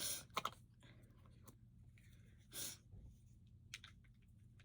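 Quiet room with a low steady hum, a few soft clicks from handling makeup, and one short breath about two and a half seconds in.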